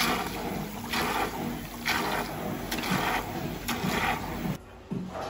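Tap water running into a pedicure foot-spa basin, splashing and gurgling through bath-bomb foam, with a faint steady low hum underneath. The water sound drops away near the end.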